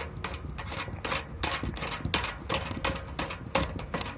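Irregular rapid clicks and rattles of metal hardware being handled, several knocks a second with no steady rhythm.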